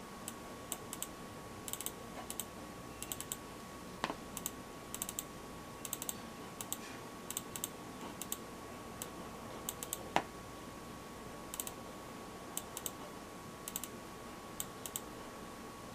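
Wired gaming mouse buttons clicking in quick pairs and triples, double-clicks selecting words on screen, with two louder knocks about four and ten seconds in. A faint steady high hum runs underneath.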